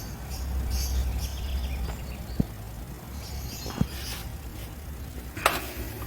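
Hands working on a car's plastic wheel-arch liner, with three sharp clicks or knocks a second or so apart, the last the loudest, over a steady low rumble.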